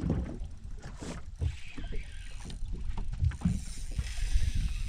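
Wind rumbling on the microphone and water lapping against a small fishing boat, with scattered light knocks and clicks.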